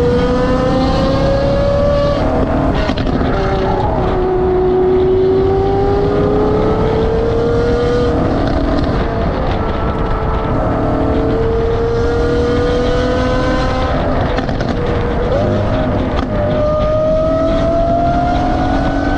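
Straight-piped Lamborghini Aventador V12 running on the road ahead, its exhaust note climbing slowly in pitch and stepping to a new pitch at a few gear changes, over steady road and wind noise.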